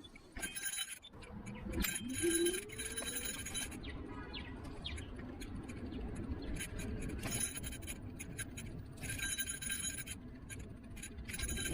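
Electric scooter in motion: a steady low rumble of the wheels on pavement, broken several times by stretches of high, rasping scraping and rattling.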